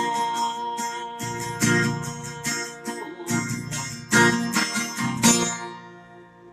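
Acoustic guitar strummed alone, no voice, playing the closing chords of a country song. The last strum, about five seconds in, is left to ring and fade out.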